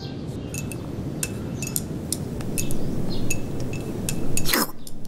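Chopsticks clinking against a ceramic bowl in quick, irregular taps as someone eats hurriedly, over a low steady background rumble, with one louder brief swish about four and a half seconds in.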